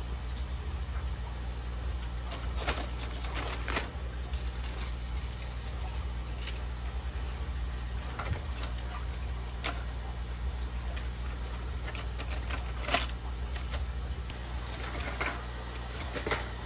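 Model railroad track pieces being handled and sorted, with scattered clicks and rattles every second or few over a steady low hum.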